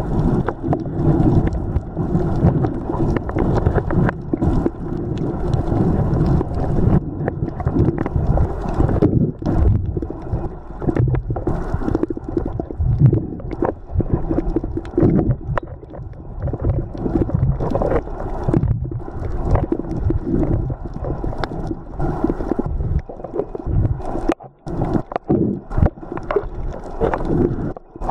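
Muffled underwater rumble and gurgling of water moving around a submerged camera, with scattered clicks and knocks. The noise drops away briefly near the end.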